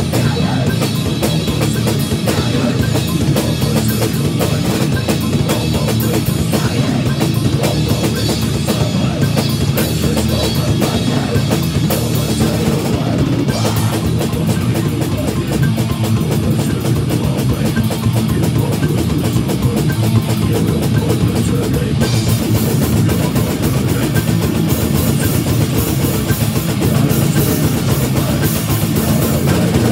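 Metal band playing live: a Tama drum kit with heavy bass drum and Paiste cymbals, with distorted electric guitar and bass guitar.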